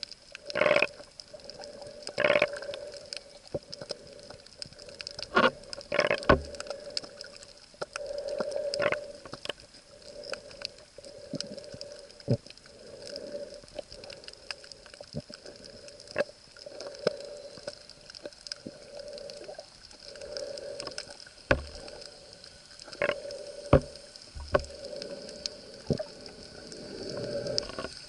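Underwater sound picked up through a camera's housing: muffled gurgling and bubbling in short bursts every second or two, with scattered sharp clicks and knocks.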